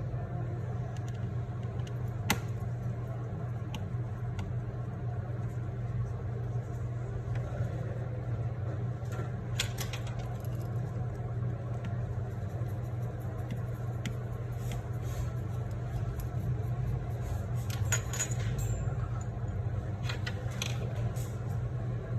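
Scattered small metal clicks and clinks of repair tools and phone parts being handled, over a steady low hum; a sharp click stands out about two seconds in, with more clustered near the end.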